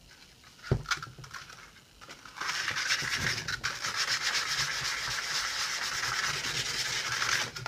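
A soft knock, then from about two seconds in, steady rapid hand sanding with 320-grit wet-or-dry sandpaper over a hardened super-glue and baking-soda filler on a vinyl-covered (Tolex) case, smoothing the cured repair level with the surface.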